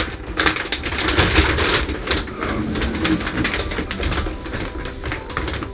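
Large plastic wrapping sheet crinkling and rustling as it is pulled and bunched up out of a wooden shipping crate.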